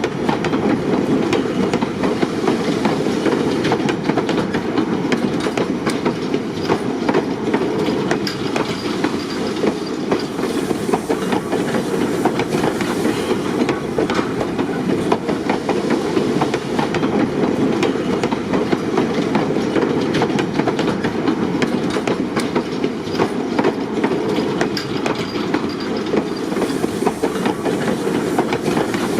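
Rail vehicle rolling along the track: a steady rumble with a dense clatter of wheels on rails.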